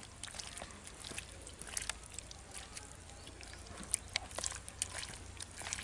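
Wet squelching and irregular small clicks of a hand squeezing and mixing raw chicken pieces with egg and spice paste in a steel plate, a few louder squelches about four seconds in.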